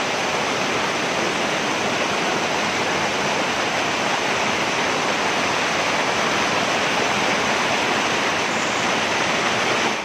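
Small waterfall cascading over rocks close by: a steady, even rush of falling water.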